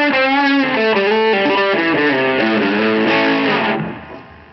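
Electric guitar played through an ALV Tubelyzer overdrive pedal, a Tube Screamer clone set to TS9 mode with its tube switch on, giving a mild overdrive, into a Robbie McVean Customs amp with a 10-inch Lorantz speaker. It plays a short run of ringing, mildly overdriven notes that die away about four seconds in. That leaves a low hiss and hum, which the player blames on an ill-suited power adapter.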